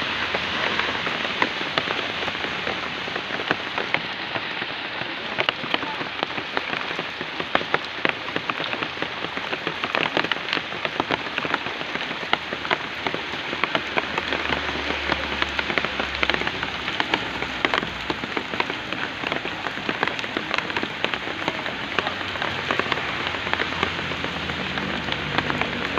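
Steady rain falling, a dense even hiss with many sharp drop ticks scattered through it.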